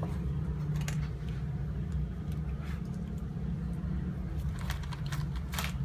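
A steady low rumble, with a few brief faint scratches and clicks.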